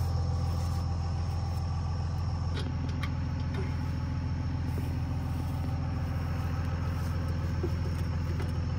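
A vehicle engine idling steadily, a low hum that doesn't change, with a few faint clicks of small metal parts being handled about three seconds in.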